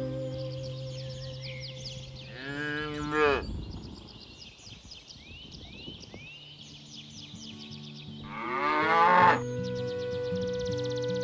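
Cattle mooing twice, each call about a second long, the second, about eight seconds in, the louder. Background music with long held notes plays underneath.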